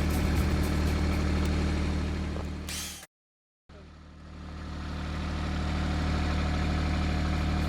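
Engine running steadily with a low, even hum; it fades out to dead silence about three seconds in for about half a second, then fades back in and runs on.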